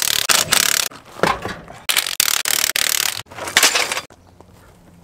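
Several loud bursts of harsh noise for about four seconds, then a Nissan D21 pickup's engine idling quietly with a steady low hum.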